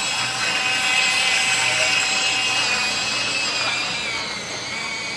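Small model engine of a radio-controlled inflatable boat running flat out, a steady high-pitched buzzing whine. After about four seconds it drops slightly in pitch and gets a little quieter as the boat speeds away.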